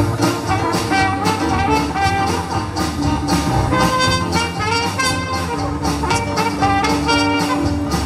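Dixieland jazz band playing live: a clarinet carries the melody, with a trombone joining near the end, over a steady beat from banjo, drum kit and double bass.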